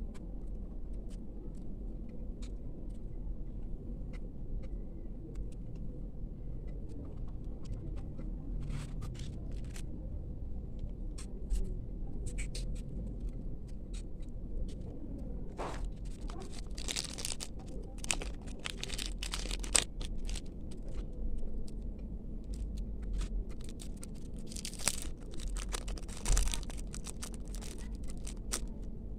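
Hands unwrapping small packaging: scattered small clicks and taps, then two stretches of crinkling and tearing of the wrapping, one about halfway through lasting a few seconds and another near the end. A steady low hum sits underneath.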